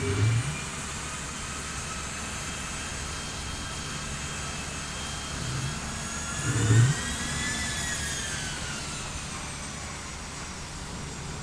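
Jet engine running with a steady roar and a high whine, the whine swelling up and falling back once about two-thirds of the way through. Two low thumps come through, one at the start and a louder one just before the whine peaks.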